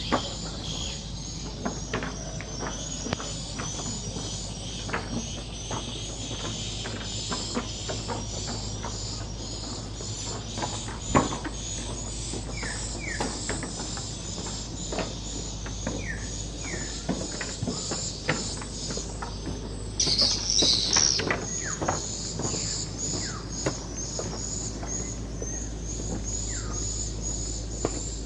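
Insects chirping outdoors in a regular high pulse about twice a second, with a louder burst of high chirping about twenty seconds in, over a low steady hum and scattered clicks.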